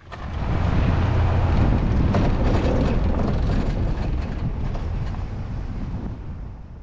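Jeep driving along a sandy dirt road, a steady rumble of engine and tyres heard from a camera mounted outside by the side mirror, fading out near the end.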